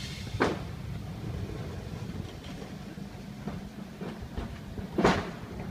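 Open-sided vintage trolley car rolling slowly on street track, a steady low rumble with two loud clunks about five seconds apart.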